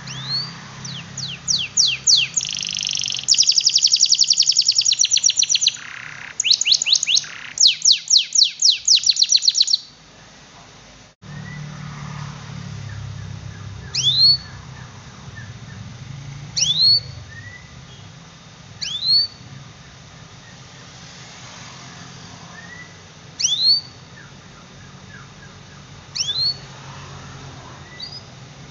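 Domestic canary singing: loud, rapid trills and chirp rolls for about ten seconds, then, after a brief break, single quick rising tweets every two to three seconds. A faint steady low hum runs underneath.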